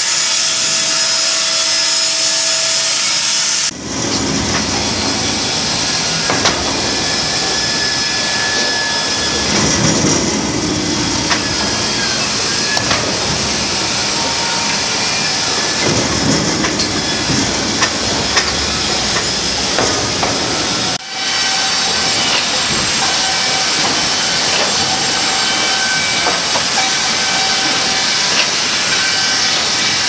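Sawmill machinery running: a steady, loud mechanical noise with a strong hiss from the saws and log conveyors. The sound breaks off and changes abruptly twice, about four seconds in and again about two-thirds of the way through.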